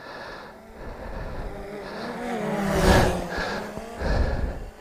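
DJI quadcopter drone's propellers humming as it flies back in. The hum rises a little in pitch and grows louder about three seconds in.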